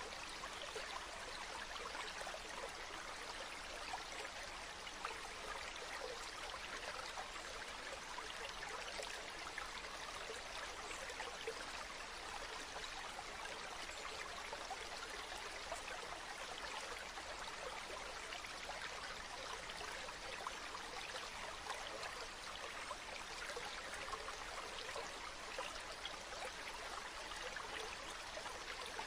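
Steady rushing hiss like running water, with fine crackles throughout and no change in level.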